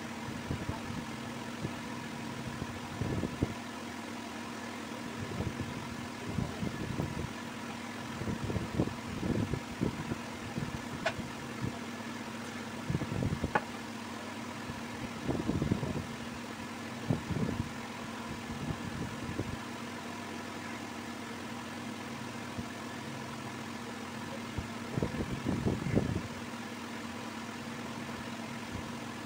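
Steady machine-like hum with a few constant tones in it, broken every few seconds by short bursts of low rubbing and bumping noise and a couple of faint clicks.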